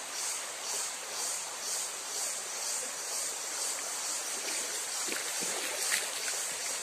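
Stream water running over a rocky bed, a steady wash. Over it runs a high buzz that pulses about twice a second, and a few light clicks come near the end.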